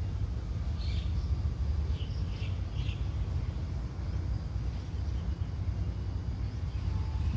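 Low, steady rumble of heavy diesel machinery running, with a few short bird chirps about one to three seconds in.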